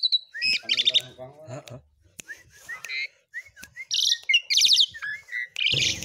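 Asian pied starling singing a varied song full of mimicked sounds. A harsh, low chatter comes about half a second in, followed by quick high rattling trills and short slurred whistles, and it turns loud and dense near the end.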